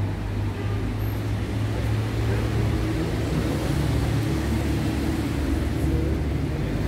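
Steady low rumble of motor vehicle engines, like road traffic, with a continuous low hum.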